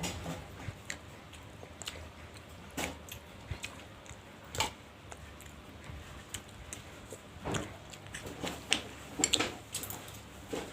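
Close-miked eating sounds: chewing with scattered sharp clicks and short smacks at irregular intervals, busiest near the end.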